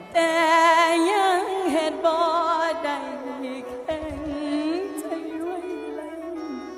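Mor lam singing: a voice comes in strongly and holds long, wavering notes with heavy vibrato over the band's accompaniment.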